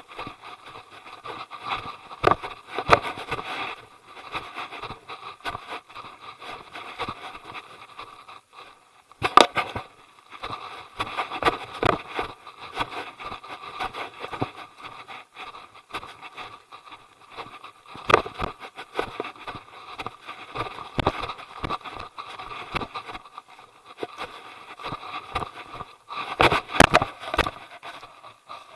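Irregular scraping and crackling with many sharp clicks and a few louder knocks, from walking on a trail with the Xiaomi Yi 4K action camera jostling and rubbing as it is carried.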